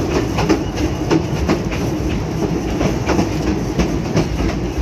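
Narrow-gauge railroad car's wheels clicking over rail joints on a steady rumble, heard from an open-sided car: a quick, uneven run of clicks.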